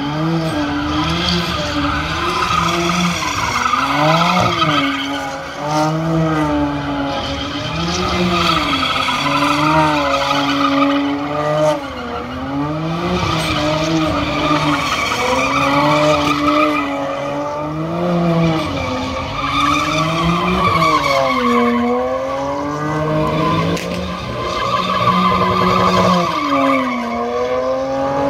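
A car doing donuts: its engine revs up and down every second or two while the tyres squeal continuously as they spin on the asphalt, producing heavy tyre smoke.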